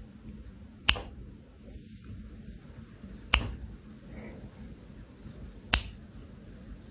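Three sharp finger snaps, about two and a half seconds apart.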